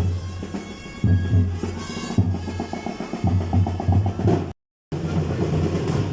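Parade marching band drums playing: heavy bass drum beats with quicker snare strokes and rolls between them. The sound drops out completely for a moment about four and a half seconds in.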